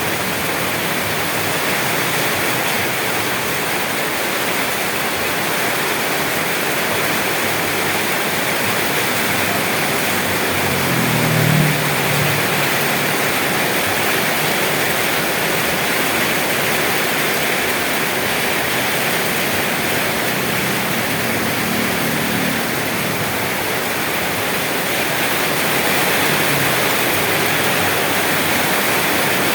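Steady heavy rain falling in a continuous even hiss, with brief low rumbles about a third and two thirds of the way through.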